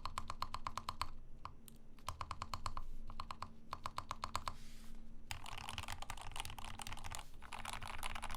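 Typing on a Rama M65-B mechanical keyboard with Gateron Ink switches, a brass plate and a mute mount: runs of quick, even keystrokes broken by short pauses, then faster, denser typing from about five seconds in. The keystrokes sound muted.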